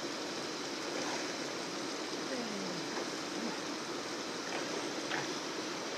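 Steady rushing of a fast-flowing river, with a few faint splashes.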